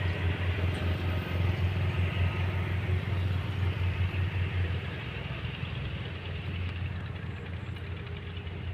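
Heavy earthmoving machine's diesel engine running with a deep, pulsing hum, which gets quieter about five seconds in.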